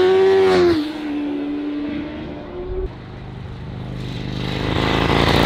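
Classic racing superbike passing close by at speed, its engine note dropping in pitch as it goes by and fading as it pulls away. A second bike's engine then grows steadily louder and passes near the end.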